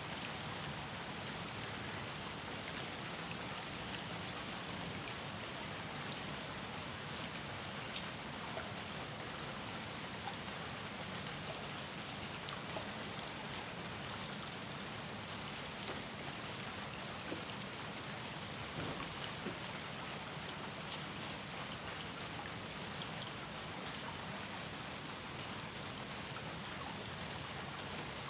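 Steady rain falling on a pond, an even hiss with scattered sharper drop ticks.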